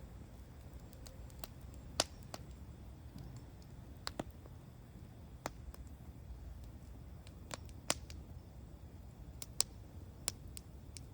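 Wood campfire crackling: irregular sharp pops and snaps, a dozen or so, the loudest about 2 s and 8 s in and near the end, over a low steady rumble of the burning fire.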